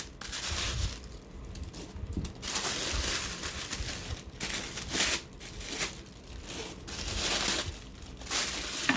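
Paper packaging crinkling and rustling as it is handled and pulled open by hand, in uneven spells with short pauses.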